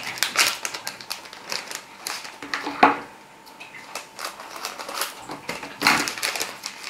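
Crinkling and crackling of foil-lined spice sachets being handled and opened, with aniseed pouring into a ceramic bowl at the start. A run of sharp clicks and crackles, the loudest about three seconds in.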